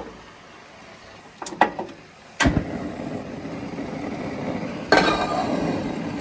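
Gas grill side burner being lit: the knob clicks as it is turned, the igniter clicks, and about two and a half seconds in the gas catches with a sharp pop, followed by the steady sound of the burning flame. Near five seconds a metal pot is set on the burner grate with a clank, and the burner keeps running under it.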